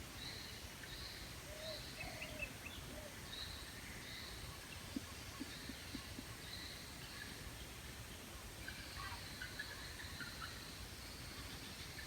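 Faint outdoor background with scattered short bird chirps, repeating every second or so, over a low steady rumble.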